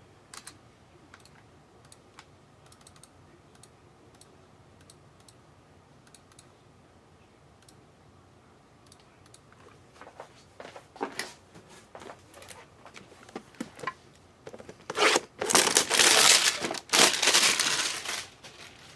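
Trading-card packaging being torn open and crinkled. It starts with a few scattered clicks and rustles and builds to a loud run of tearing and crinkling in the last few seconds.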